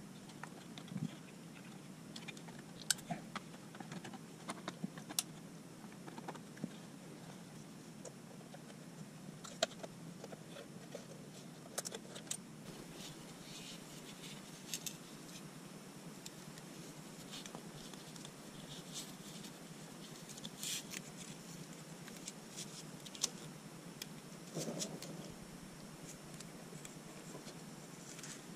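Faint scattered clicks and light rattles of plastic dash parts and electrical connectors being handled by hand, over a steady low hum.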